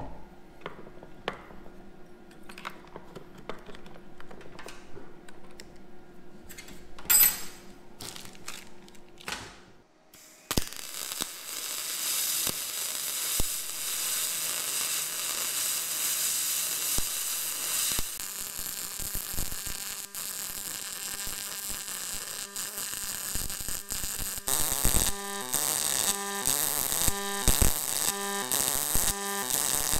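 Aluminum MIG welding with a spool gun on a YesWelder Firstess DP200: after some handling clicks and a short loud burst, the arc starts about ten seconds in with a steady crackle and hiss. In the last few seconds the arc sound pulses in an even beat about twice a second, the dual-pulse mode switching between high and low current.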